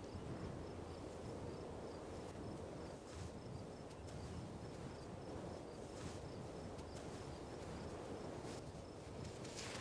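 An insect chirping in short, evenly spaced high pulses over a steady low background rush.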